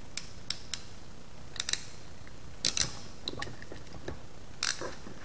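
Hand-held wire tool clicking as it works on electrical wire: about a dozen short, sharp snaps and clicks, with louder double snaps about two and a half and four and a half seconds in.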